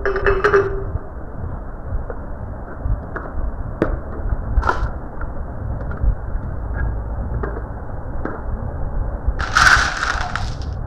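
Marbles rolling down a marble run track in a steady rumble, with a few sharp clicks as they strike the track, and a louder clatter of marbles knocking together near the end.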